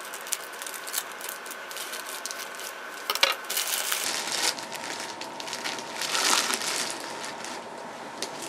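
Scissors snipping through a plastic mailer bag, then the thin plastic crinkling and rustling as a package is pulled out of it. There is a sharp crackle about three seconds in and a louder rustle around six seconds in.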